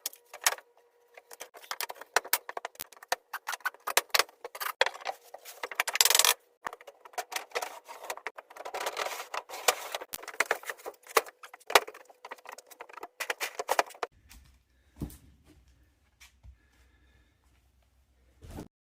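Dense, irregular clicking and rattling of small hard objects being handled for about fourteen seconds, followed by a few scattered knocks.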